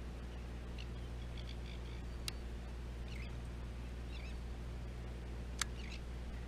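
Boat engine running at idle with a steady low hum, while gulls give several short faint calls. Two sharp clicks stand out, one a couple of seconds in and one near the end.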